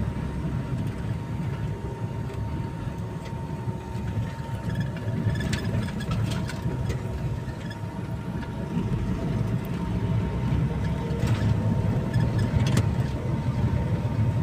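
Van's engine and road rumble heard from inside the cabin as it drives slowly, steady throughout, with a few light clicks.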